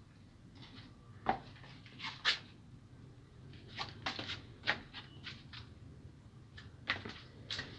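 About ten light, short knocks and rustles spread irregularly, the loudest a little over two seconds in, over a faint low hum.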